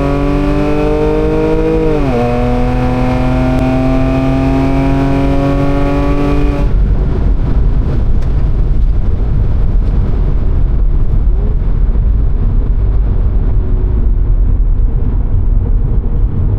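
Audi S5 accelerating hard on a drag-strip pass, its engine note climbing steadily with a quick upshift about two seconds in. About seven seconds in the engine note stops as the throttle is lifted, leaving a loud low rumble of road and wind noise.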